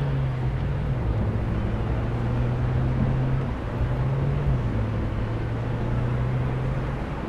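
A vehicle in motion, heard from inside: a steady low hum over road noise, its pitch stepping up slightly and back down a few times.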